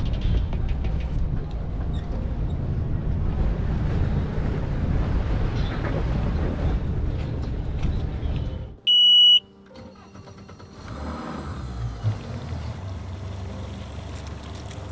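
Steady road rumble of a bass boat riding on its trailer behind a pickup, which cuts off suddenly about nine seconds in. A loud, high electronic beep lasting about half a second follows, then a Mercury outboard motor idling quietly on the water.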